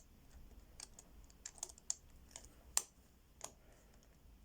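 Irregular light clicks of the number wheels on an Abus 158CS/65 combination padlock being turned by finger, one position at a time, while the code is felt for by wheel stiffness. The loudest click comes near three seconds in.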